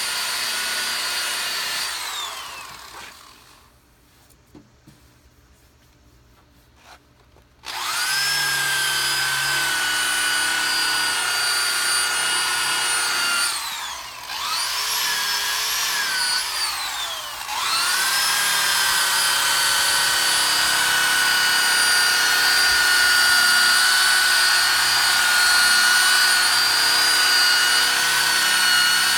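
Electric buffing wheel running and polishing a plastic headlight lens with finishing compound: a steady motor whine that winds down a couple of seconds in and stops, then spins back up after a pause of about four seconds. Near the middle its pitch sags twice briefly, as if it is being loaded.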